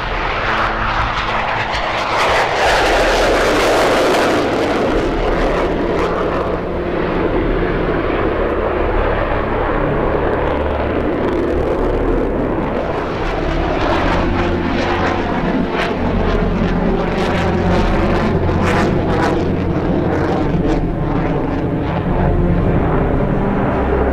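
Loud jet noise from the MiG-29OVT's two RD-133 thrust-vectoring engines as the fighter lifts off, loudest about two to four seconds in, then a continuous rushing roar as it climbs and manoeuvres. The roar takes on a wavering, phasing quality in the later seconds.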